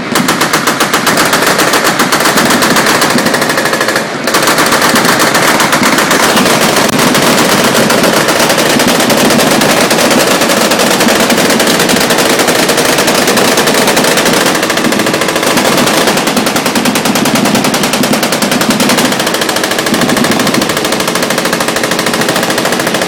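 Machine guns firing full-auto in near-continuous bursts, with a brief let-up about four seconds in.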